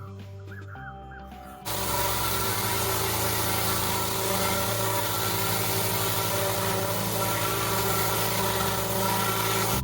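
Background music, with a loud steady rushing noise that starts suddenly about two seconds in and runs on under it.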